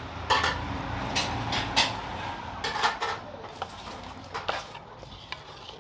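Metal and wooden spoons knocking and scraping against a metal pot as thick mango conserve is stirred, with a series of sharp clinks. A low rumble lies underneath and fades away toward the end.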